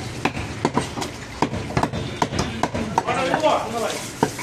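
Meat cleaver chopping mutton on a wooden block, sharp knocks about twice a second, over the chatter of voices in a busy meat market.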